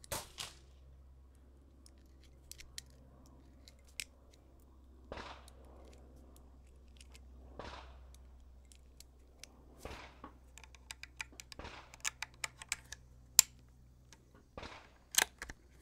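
.22 LR cartridges being thumbed one at a time into a rifle's detachable magazine: scattered small metallic clicks, coming in a quick run near the end, with soft handling noises between.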